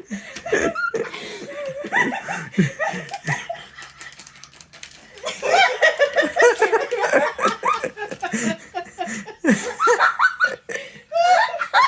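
People laughing and chuckling, several voices at once, with the heaviest laughter about halfway through and another burst near the end.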